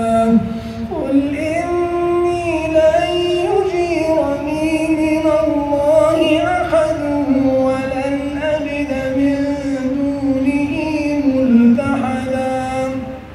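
A man's solo Quran recitation in a melodic, drawn-out chanting style, the voice holding long notes and bending slowly up and down through each phrase, with a short breath about a second in as a new phrase begins.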